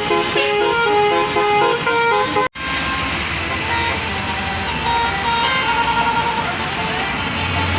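Bus telolet basuri horn playing a quick melody of short, changing horn notes. It breaks off suddenly about two and a half seconds in, followed by a bus engine running with fainter horn notes over it.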